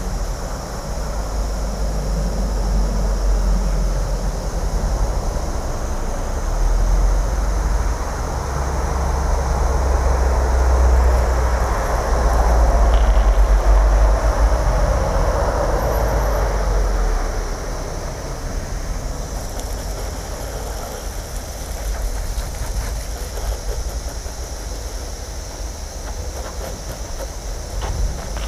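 Wind buffeting the microphone: a low rumble with a rough hiss over it, swelling to its loudest about halfway through and easing off after.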